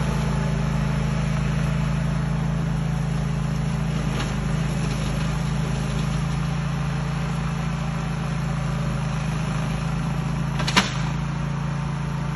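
Grillo 10.27 ride-on slasher's engine running steadily under load as it slashes grass and lantana, with one sharp crack about eleven seconds in.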